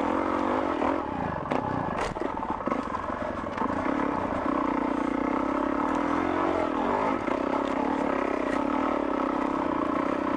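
Dirt bike engine running under load up a steep hill climb, its pitch dropping and picking up again about a second in and once more around two-thirds of the way through. A few sharp knocks and rattles come from the bike over rough ground.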